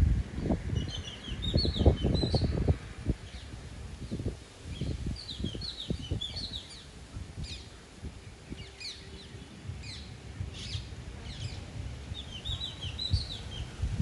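Wind gusting over the microphone, strongest in the first three seconds, while parakeets give several bursts of quick, high chirps.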